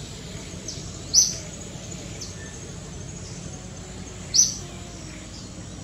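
A bird giving short, high chirps, two loud ones about three seconds apart with fainter ones between, over a steady background hiss.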